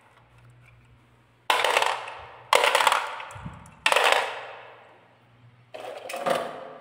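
Marbles dropping one at a time off the end of a wooden marble-run track into a plastic toy dump truck's bed, each clattering and rattling against the marbles already there. There are four drops, each a sudden clatter that dies away over about a second.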